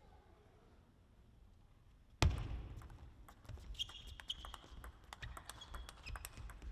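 Table tennis play in a sports hall: a sudden thump about two seconds in, then a run of sharp ball clicks on bat and table, with a short shoe squeak on the floor.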